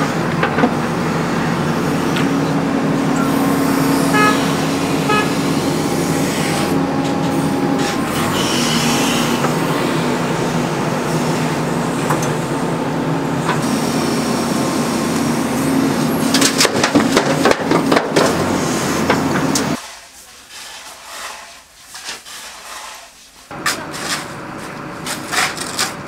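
JCB backhoe loader's diesel engine running steadily under load as the backhoe digs and lifts soil, heard from the cab, with several clanks around sixteen to nineteen seconds in. The engine sound cuts off abruptly about twenty seconds in, giving way to quieter noise and a few knocks.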